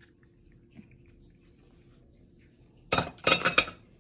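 A quick cluster of about four sharp clinks and knocks, a utensil striking a glass mixing bowl, about three seconds in and lasting under a second. Before it there is only a faint steady hum.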